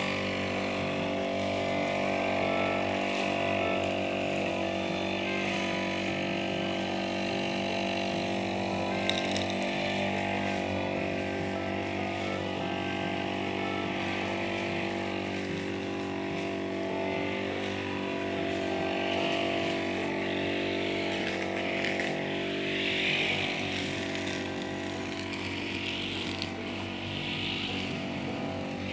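Small two-stroke engine of a brush cutter running at a steady speed, its pitch unchanging.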